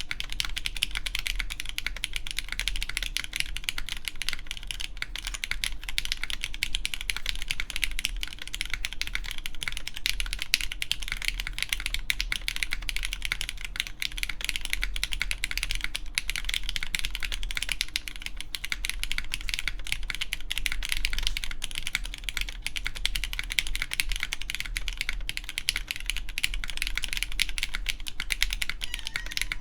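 Continuous fast typing on a mechanical keyboard with lubed Cherry MX Black Clear Top linear switches under GMK keycaps on an aluminum plate: a dense, steady stream of keystroke clacks.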